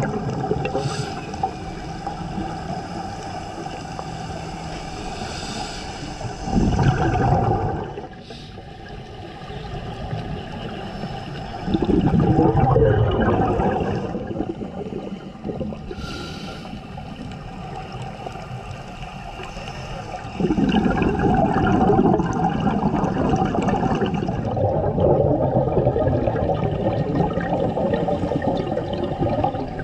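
Scuba divers' regulator exhaust bubbling and gurgling underwater in long bursts, each exhalation louder than the steady underwater hiss between them.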